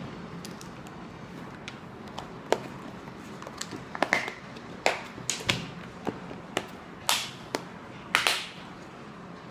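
Hard plastic flashlight case being shut: a series of sharp plastic clicks and knocks as the lid closes and is pressed and snapped down, with two short scraping sounds near the end.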